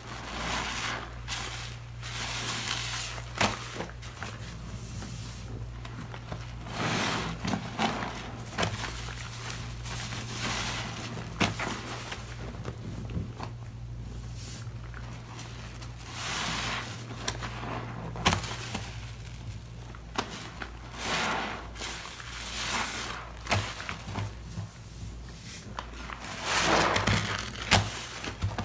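Sponges squeezed by hand in a basin of thick soapy foam: repeated wet squelches, each about a second long, with sharp little clicks from the suds, over a steady low hum.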